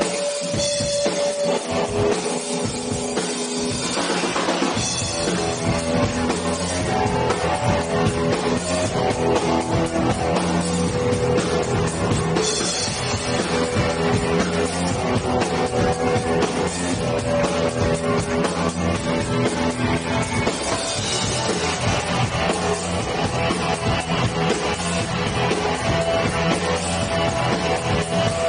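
Live rock band playing on stage: electric guitars, bass guitar and drum kit, with the full band and drum beat coming in a few seconds in.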